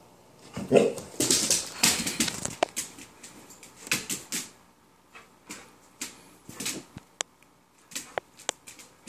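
Puppy whining and barking in play at a wire ferret cage. The loudest part is a burst of dog noise lasting about two seconds, starting about a second in; softer noises and a few sharp clicks follow.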